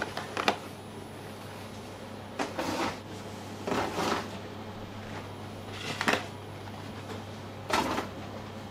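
Kitchen work sounds: a few short knocks and scrapes of containers or utensils being handled, about every one to two seconds, over a steady low hum of kitchen equipment.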